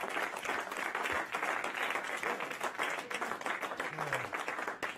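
A roomful of people applauding, many hands clapping at once without a break. A short voice is heard about four seconds in.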